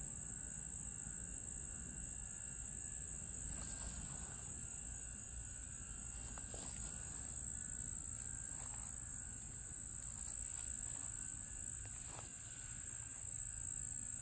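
Insects singing in a steady, high-pitched chorus, over a low rumble.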